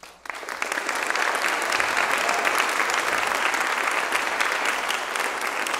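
Audience applauding: dense, steady clapping from a large crowd that starts a moment in and rises quickly to full strength.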